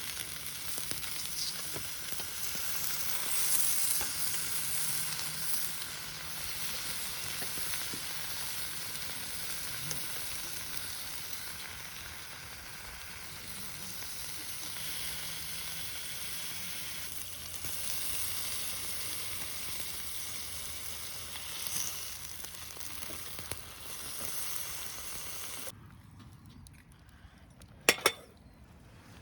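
Meat sizzling as it fries in a wok over a campfire, a steady hiss that dies down near the end. A couple of sharp clacks come just after it stops.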